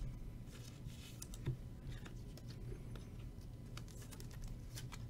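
Baseball trading cards being flicked through and shuffled in the hands: faint, irregular light clicks and flicks of card edges.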